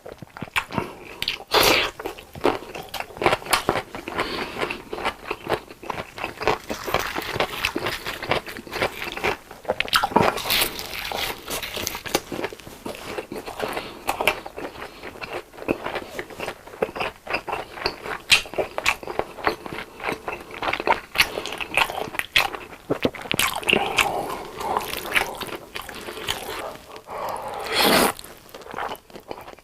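Close-miked eating of breaded fried cheese sticks and chili tomato spaghetti: crunchy bites and wet chewing, with many small sharp crackles throughout and a louder, fuller eating sound near the end.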